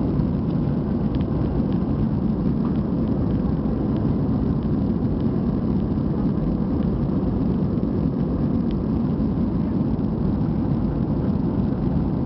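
Steady cabin noise inside an Airbus A320 in flight: engine and airflow noise heard at a window seat, even and unchanging.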